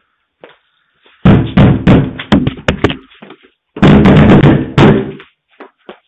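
Heavy, rapid banging on a house's front door, close to a Ring video doorbell's microphone and distorting it. It comes in two flurries of many quick blows: the first starts about a second in and lasts about two seconds, and the second follows after a short pause.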